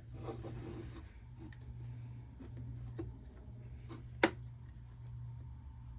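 Small metal tabs on a Uconnect 8.4 radio screen's housing being pried up with a tool: a few light clicks, one sharp click about four seconds in, over a low steady hum.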